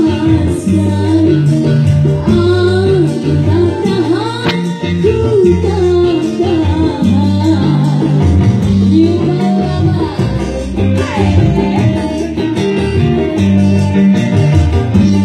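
A song playing, with a singing voice over plucked guitar and a prominent stepping bass line.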